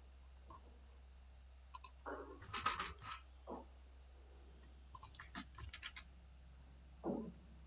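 Computer keyboard keystrokes in irregular bursts, densest about two to three seconds in and again around five to six seconds, over a low steady hum.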